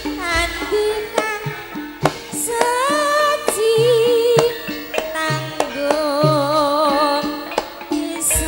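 Javanese gamelan music: a high, wavering sung voice over drum strokes and held metallophone tones.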